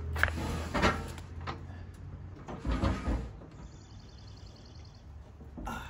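A folding metal boarding ladder sliding out of its storage channel under a truck's body: scraping and clanking of metal on metal, loudest in bursts about a second in and around three seconds, then a sharp clack near the end.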